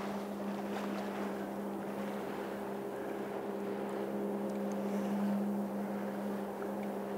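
A motor running with a steady low hum over the constant rush of river water.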